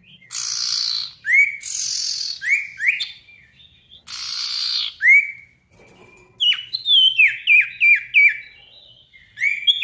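Male sirtu songbird singing loudly: harsh rasping bursts, each followed by a short upward-swept whistle, then about two-thirds of the way through a rapid run of six or so sharp descending whistled notes. This is a challenging song used as a lure recording to set other sirtu birds singing.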